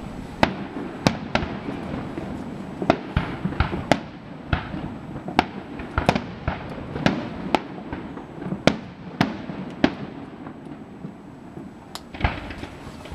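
Fireworks display: aerial shells going off in a steady run of sharp, irregular bangs, about one or two a second, with continuous noise between them.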